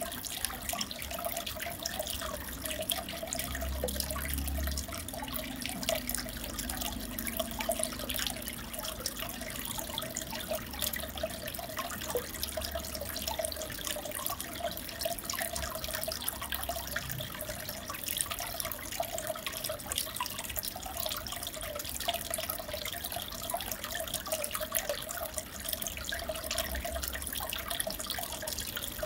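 Aquarium water trickling steadily, with a fine patter of drips.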